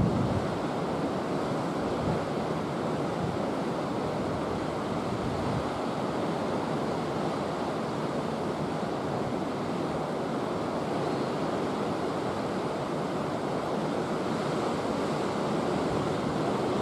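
Steady, even rushing noise with no distinct calls, footsteps or other separate sounds standing out of it.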